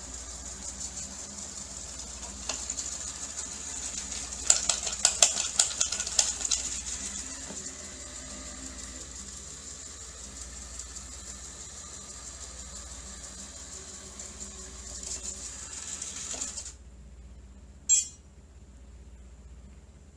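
Robot vacuum cleaner running with a steady high whine over a low hum, rattling and clicking for a couple of seconds about four seconds in. The motor cuts off suddenly near the end, followed by a single sharp click.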